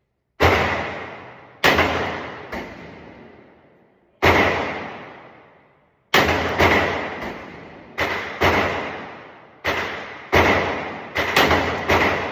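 Firearm shots at a shooting range: about sixteen sharp reports at an uneven pace, coming faster near the end, each trailing off in a long echo.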